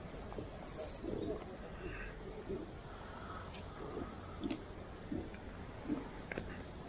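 Birds calling: a pigeon cooing in short, low, repeated notes, with a few faint higher chirps from small birds.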